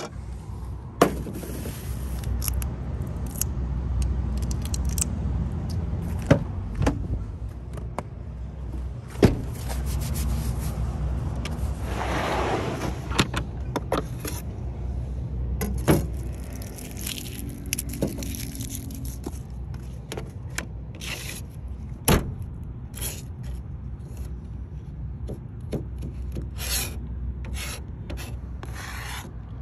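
Kitchen knife chopping garlic on a plastic cutting board: a run of quick, uneven taps in the last several seconds. Before that, gear is handled in a wooden storage box, with scattered knocks and clatters and a stretch of rustling.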